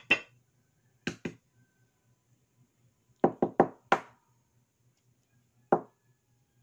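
A hard-boiled egg's shell knocked against a hard surface to crack it for peeling: sharp knocks, one at the start, two about a second in, a quick run of five around three to four seconds in, and one more near the end.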